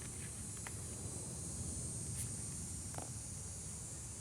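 Steady background noise: a high-pitched hiss over a low rumble, with a few faint clicks.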